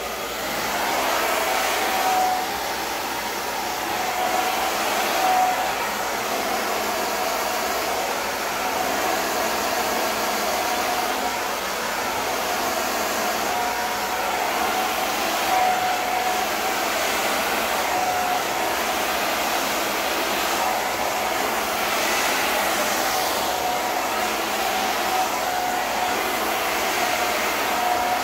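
Handheld hair dryer blowing steadily: a rush of air with a faint motor whine that comes and goes.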